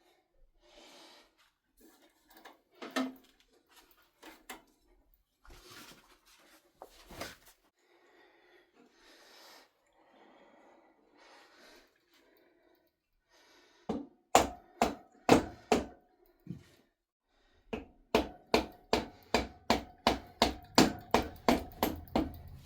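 Hammer blows on the rear axle of a Harley-Davidson Dyna, driving it out of the swingarm. Light clinks and knocks of tools at first, then a few sharp ringing blows a little past halfway, turning into a steady run of about three blows a second near the end.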